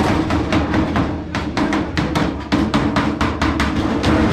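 Hammer striking sheet metal in a quick steady run of blows, about four or five a second, with a short pause about a second in.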